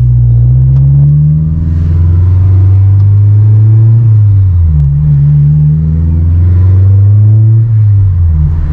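Honda S2000's four-cylinder VTEC engine running under way, heard from inside the cabin. Its note dips in pitch and climbs again a few times as the car is driven.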